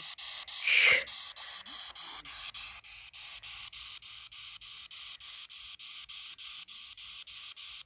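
P-SB7T Spirit Box sweeping through radio stations: a steady static hiss chopped about five times a second as it jumps channels, with a brief louder burst about a second in.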